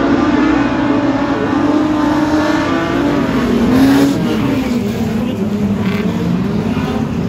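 Speedway race car engines running hard on the track, several engine notes overlapping. About four seconds in, one car passes close: its note peaks in loudness, then drops in pitch.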